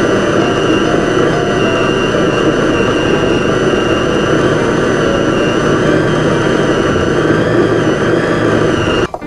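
Food processor motor running at speed, a loud steady whine as its blade minces raw red sea bream into paste; it cuts off suddenly near the end.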